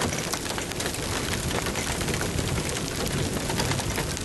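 Steady rain, a dense patter of many small ticks over a low rumble.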